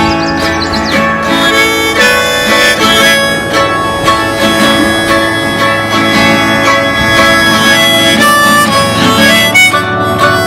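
Acoustic folk band playing an instrumental break between verses: a lead melody of long held notes over acoustic guitar.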